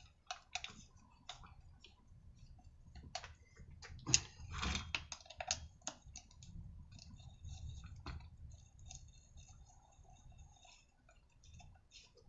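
Faint, scattered clicks and knocks of metal parts being handled and fitted together as the aluminium front housing is put onto a petrol brushcutter engine. The loudest knock comes about four seconds in, another sharp one near eight seconds.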